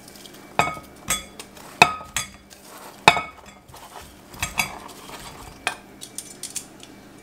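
Metal tongs clinking against a glass bowl and plate as fried chicken pieces are dropped into the bowl: about eight sharp, irregular clinks, several with a short glassy ring.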